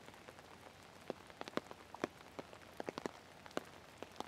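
Rain falling, with irregular single drops ticking close by over a faint steady hiss.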